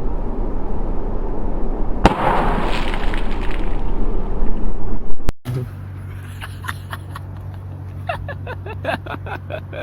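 A Brisk bottle bursting: a sharp crack about two seconds in, then a rush of noise that fades over the next couple of seconds. Just after halfway the sound cuts to a steady low hum with a run of light clicks.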